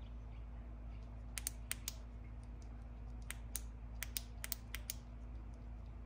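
Small flashlight switch clicked rapidly over and over, about a dozen sharp clicks mostly in close pairs, as the light is cycled through its modes toward its hidden SOS.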